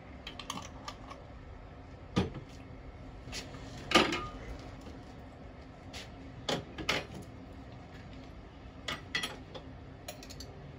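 A spoon clinking and scraping against a jar while Dijon mustard is scooped out: a series of short, sharp clinks at irregular intervals, the loudest about four seconds in with a brief ring.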